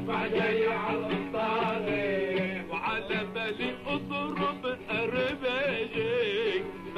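Middle Eastern song music: a wavering, ornamented melody line over a held low drone.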